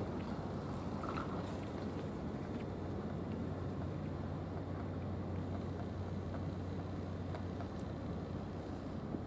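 Steady low hum and rumble of a distant running engine, even throughout, with a few faint ticks over it.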